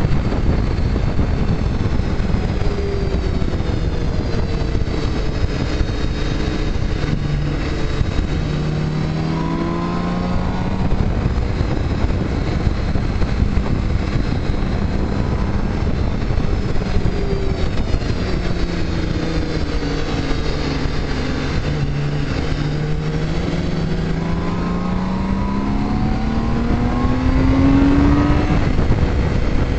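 Motorcycle engine running at road speed under heavy wind rush, its pitch rising and falling with the throttle, with a long steady climb in pitch near the end as it accelerates.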